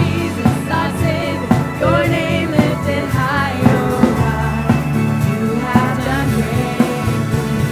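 Christian worship music: a band playing with a voice singing over it and a steady beat.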